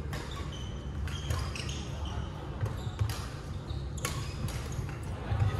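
Badminton rackets hitting shuttlecocks in several games at once, sharp hits about every second, with short sneaker squeaks on the wooden court floor in between. A steady low hum runs underneath.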